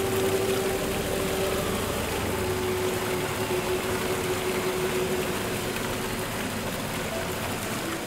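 Steady hiss of rainfall, with a single low held note of background music that fades near the end.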